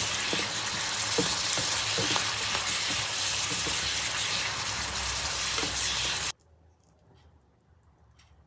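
Green mustard greens sizzling as they are stir-fried in a hot pan, with small scrapes and knocks of the stirring utensil. The sizzle cuts off suddenly about six seconds in.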